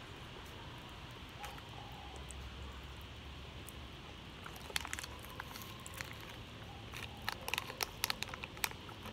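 Crinkling of a candy packet's wrapper as it is handled, with a series of short sharp crackles about halfway through and more near the end.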